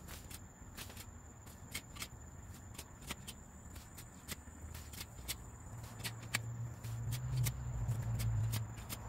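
Pitchfork tines scraping and scratching through loose soil and compost, with scattered sharp ticks as the tines catch. A low rumble swells from about six seconds in and is loudest near the end.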